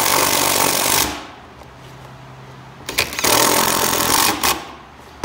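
Cordless impact driver hammering as it runs down the brake disc bolts holding a rotor to its hub, snugging them before final torquing. It runs in two bursts: one stopping about a second in, another from about three seconds in lasting about a second and a half.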